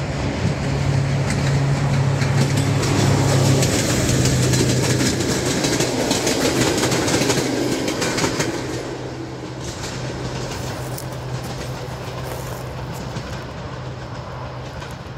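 LDH diesel-hydraulic locomotive hauling a passenger train past, its engine running with a steady drone and the coach wheels clattering over the rail joints. The sound drops off a little past halfway as the train moves away, and the engine drone carries on more faintly.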